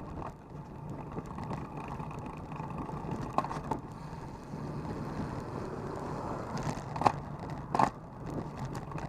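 Road and traffic noise heard from a road bike on the move: a steady low rumble, with short sharp knocks about three and a half, seven and eight seconds in.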